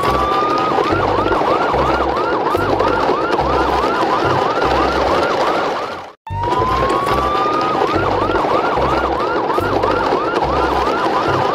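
Electronic siren sound played in a loop: a slow rising wail that switches to a fast yelp of about three rising-and-falling chirps a second, over a low pulsing beat. The loop cuts out briefly about six seconds in and starts again with the same rising wail.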